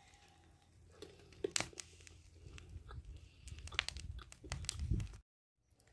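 A person biting into and chewing charcoal-roasted corn on the cob: a run of small crunches and clicks that get busier toward the end and cut off suddenly.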